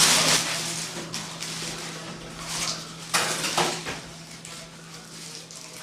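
Objects clattering and rustling as things are handled and cleared out of a refrigerator, in several short bursts, the loudest at the start and again about three seconds in, over a steady low hum.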